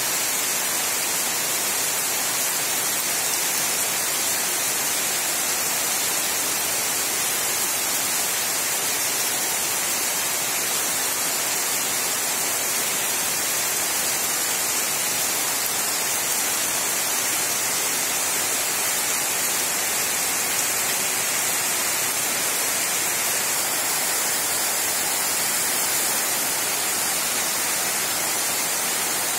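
Heavy monsoon rain pouring onto flat concrete rooftops standing in water: a loud, steady hiss of rain with no let-up.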